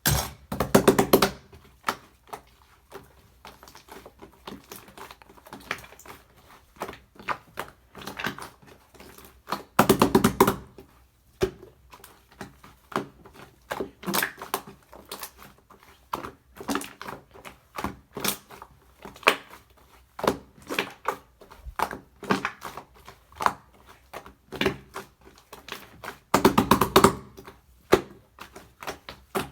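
Slime being squished and poked by hand, making a constant run of small sticky clicks and pops, with louder dense clusters about a second in, around ten seconds in, and near the end.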